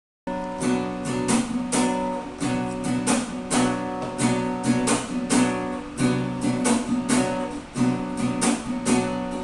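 Acoustic guitar strumming chords in a steady rhythm as the instrumental intro of a song, with no voice yet.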